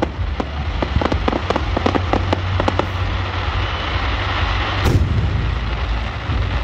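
Aerial fireworks display: a rapid string of bangs and crackling reports through the first three seconds, then a single heavy shell burst about five seconds in.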